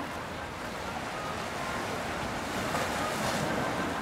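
Steady rushing wash of river water and wind, swelling a little about three seconds in.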